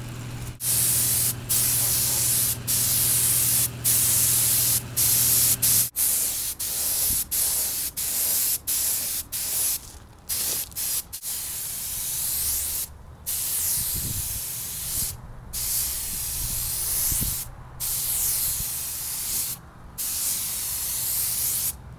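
Gravity-feed air spray gun hissing in repeated bursts of one to two seconds, cutting off briefly between passes as the trigger is released: spraying a coat of paint. A steady low hum runs underneath for the first six seconds.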